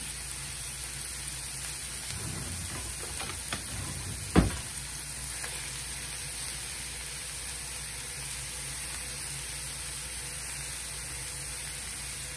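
Sliced mushrooms sautéing in a little grapeseed oil in a skillet, a steady sizzle as they are stirred, with a few light knocks and one sharp knock about four seconds in.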